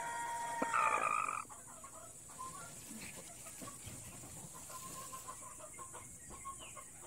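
Native hen sitting on her nest of eggs and calling: a loud drawn-out call for about the first second and a half, then soft short clucks.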